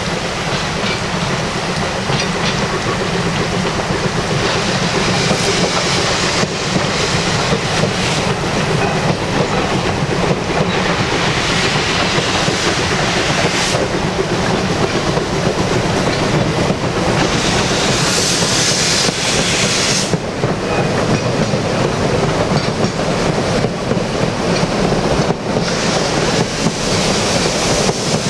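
Saxon narrow-gauge steam locomotive IK No. 54 passing under steam, its exhaust chuffing, followed by its carriages rolling with a clickety-clack over the rail joints. Brighter hissing swells in twice, around the middle and again about two-thirds of the way through.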